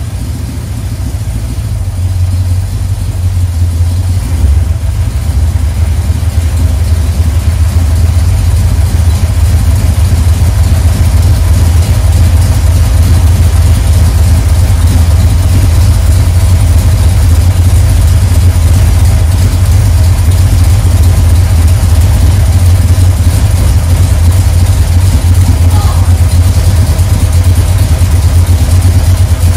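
Freshly built 440 big-block V8 with a dual-carburetor tunnel ram, running steadily on one of its first runs with a deep low rumble. Its level builds a little over the first few seconds, then holds steady while the ignition timing is set; the engine is running a touch retarded.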